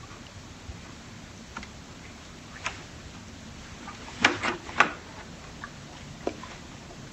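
A few light, sharp clicks and taps over a quiet room background, with a quick cluster of louder taps about four to five seconds in.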